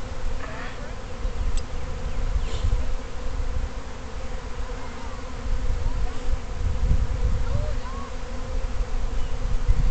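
Honey bees of an unsettled swarm buzzing in the air: a steady hum, with short rising and falling whines as single bees fly close by.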